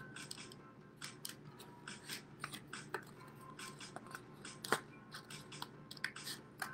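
Scissors snipping through a paper plate in a string of short, irregular cuts, with one louder snip about two-thirds of the way through.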